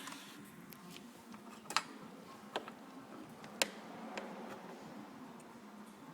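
About four sharp clicks from the car's relay being handled at its socket, the loudest about three and a half seconds in, over a faint steady hum.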